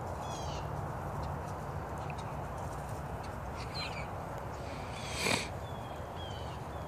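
Steady outdoor background noise with birds chirping several times in short, falling calls. A brief rustle comes about five seconds in.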